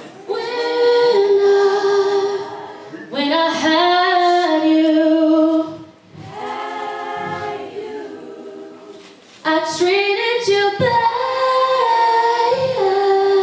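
A group of young women singing together in long held notes, in four phrases of about three seconds each, the third phrase quieter than the others.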